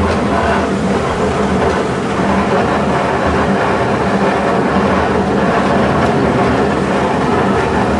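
Steady engine hum and road rumble of a slow-moving road vehicle, heard from its open upper deck.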